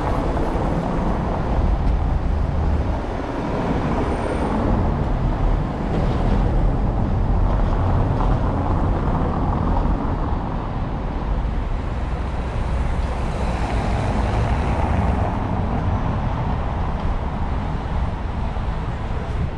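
Street traffic noise: vehicles passing by in a steady rumble, swelling a couple of times as nearer ones go past.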